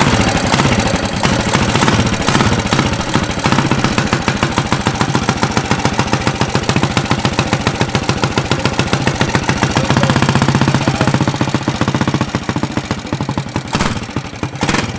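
Small gasoline engine of a custom chopper-style minibike running just after being pull-started, with a rapid, even firing beat. The sound swells briefly about ten seconds in and drops off a little near the end.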